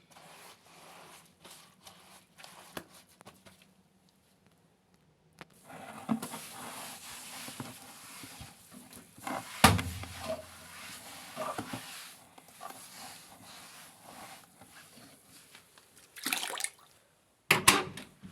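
Water running and splashing, with scattered knocks and handling clicks and one sharp loud click about ten seconds in.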